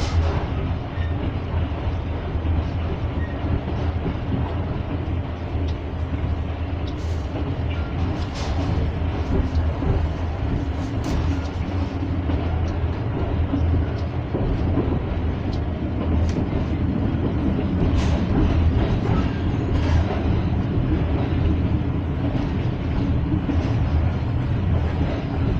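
Train running at speed, heard from on board: a steady low rumble of wheels on the track, with scattered sharp clicks and knocks from the rails.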